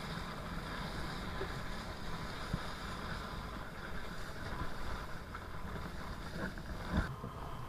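Wind rushing over the camera microphone and water hissing past while kitefoiling, with a sharp knock near the end.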